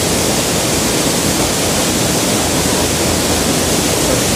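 Steady rush of flowing water, an even hiss with no breaks or changes.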